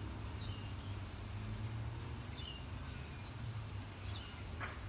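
A few faint, short bird chirps over a steady low hum, with one small click near the end.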